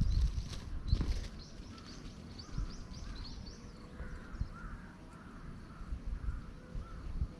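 Forest birds calling: quick high chirps over the first few seconds, then a run of short, repeated arched calls. Low thumps and rustling, loudest in the first second or so.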